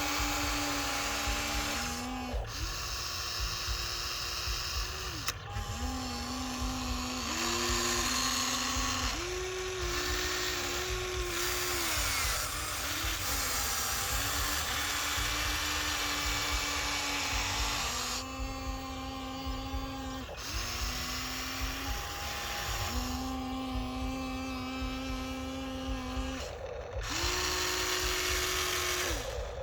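Small electric motor and plastic gears of a motorised toy excavator or truck whining with a rattly, hissing drone. The pitch steps up and down as the load changes, and it stops and starts again several times.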